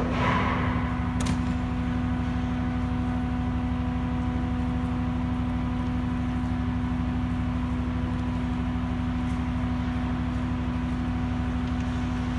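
Steady machinery hum aboard a ship, a constant drone with a low rumble beneath it, with a brief rush of noise at the start and a small click about a second in.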